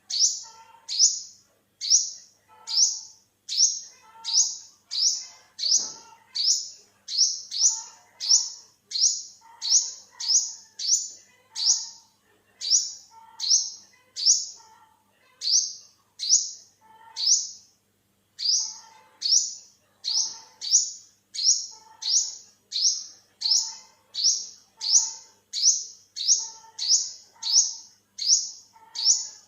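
Olive-backed sunbird calling: a sharp, high note repeated evenly about one and a half times a second, each note a quick downward sweep, with a few short pauses in the series.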